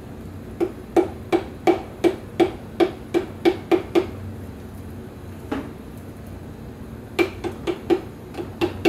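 Light, even taps, about three a second, driving a piston and its rings through a ring compressor into the cylinder bore of a Honda GSR B18C1 engine. The tapping stops for about three seconds midway, with one lone tap, then starts again.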